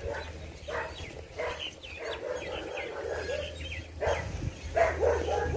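Dogs barking in a string of short calls, one every half second or so.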